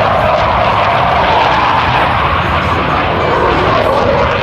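Loud, steady jet roar of two F/A-18 Hornet fighters flying past.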